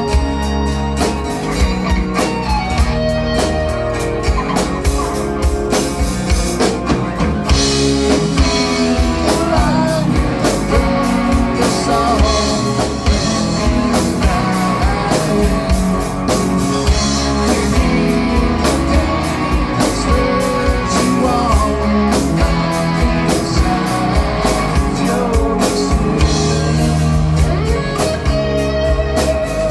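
Rock band playing: drum kit and electric guitars, with a dense, steady beat and no sung words.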